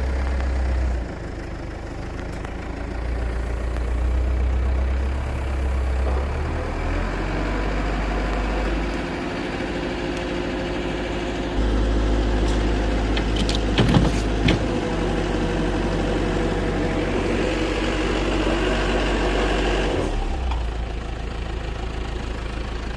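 Isuzu Elf crane truck's engine running, its speed stepping up and down several times, with a few sharp knocks a little past halfway.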